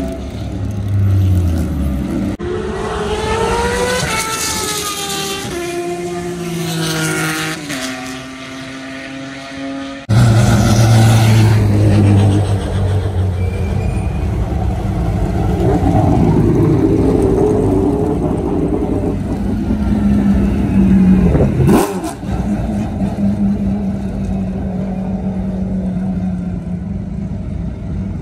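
Race car engines running loudly: revs climb and drop again and again in the first part, then a louder engine runs steadily with small rises and falls in pitch. A single sharp crack comes about three quarters of the way through.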